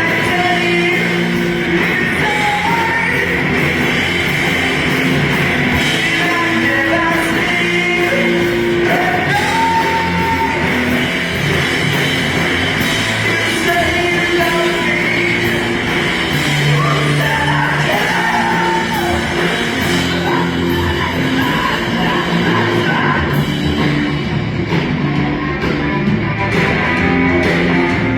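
Rock music with singing over guitar and drums.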